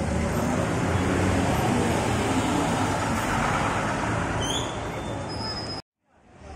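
Daewoo BV115 coach's diesel engine running and tyres on the road as the bus passes and pulls away, mixed with street traffic; a few brief high chirps about four and a half seconds in. The sound cuts off abruptly near the end and then fades back in.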